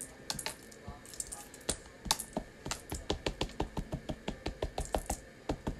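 A plastic-cased ink pad tapped again and again onto a large red rubber buffalo-check background stamp: light clicks, scattered at first, then an even run of about four a second.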